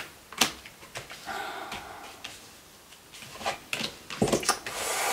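Tarot cards being handled and laid out on a table: a series of sharp taps and flicks spread through, with softer rustling between them.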